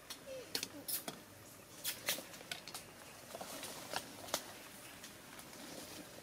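A string of sharp, irregular clicks and crackles, densest in the first couple of seconds, with a few faint short voice sounds among them.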